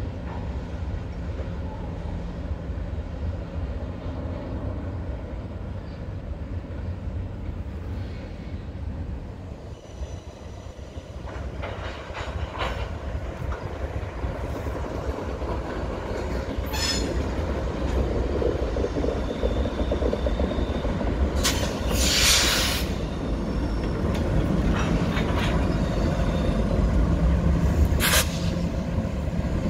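Freight train rolling past: a steady rumble of wheels and cars that grows louder in the second half as a CN diesel locomotive draws near. A few brief, sharp wheel squeals cut through it, the longest about two-thirds of the way in.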